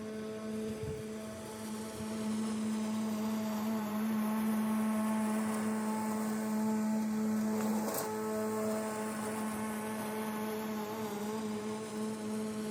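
Electric lawn tool motor running at a steady speed, a constant hum. There is a brief click about 8 seconds in.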